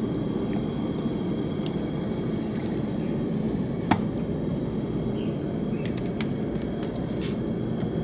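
Gas burner roaring steadily under a large metal tray of Coca-Cola as it heats toward the boil. A sharp click comes about four seconds in, with a few faint clicks near the end.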